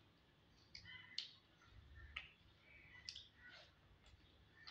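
Faint eating sounds: wet clicks and smacks of chewing and of fingers squishing rice and bhaji on a plate, coming irregularly a few times a second.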